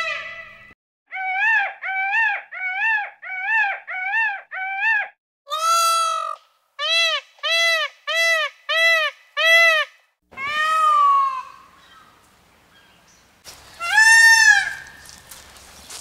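Peacock calling: loud, repeated calls that rise and fall in pitch. First comes a run of six quick calls, then one longer call, then five more in quick succession, then two single calls, the last and loudest near the end.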